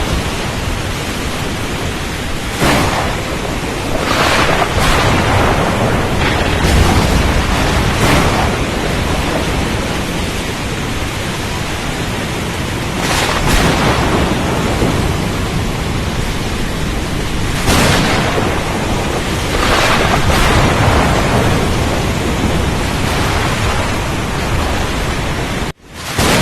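Storm at sea: a continuous roar of wind, rain and waves that swells every few seconds. It cuts out for a moment near the end.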